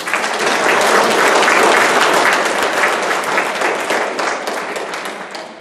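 Audience applauding, starting all at once and dying away near the end.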